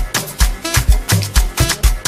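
House music from a DJ mix: a steady beat of deep kick-drum thumps with dense, fast percussion hits and no vocals.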